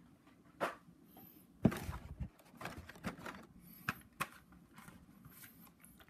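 Handling noise from carded Hot Wheels die-cast cars in plastic blister packs: scattered clicks, taps and crinkles of plastic and cardboard, with the loudest knock about two seconds in.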